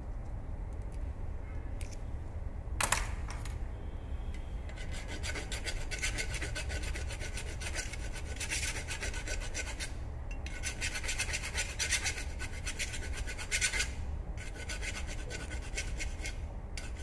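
Flat hand file rasping back and forth across the cut end of a copper pipe clamped in a flaring bar, dressing the end before it is flared. The filing starts about five seconds in and comes in three runs broken by short pauses, after a single sharp knock about three seconds in.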